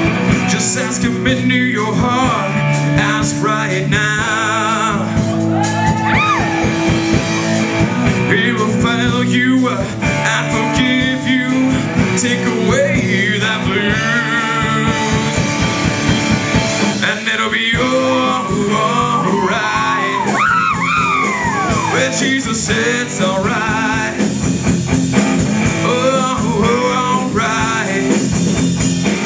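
Live blues-rock band playing loudly: an electric guitar plays a lead line full of bent notes over a steady backing with regular hits.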